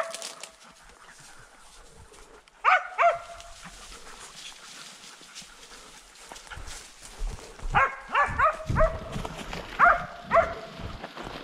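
Hunting dog barking in short bursts: two barks about three seconds in, a quick run of barks around eight seconds, then two more near ten seconds. Low thuds sound underneath in the second half.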